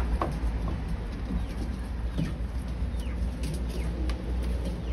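Live chickens nearby giving a few short, high, falling peeps, over a steady low rumble.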